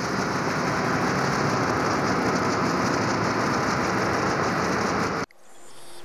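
Loud, steady rushing noise, much like heavy rain, that cuts off suddenly about five seconds in; after it comes much quieter ambience with a faint steady hum.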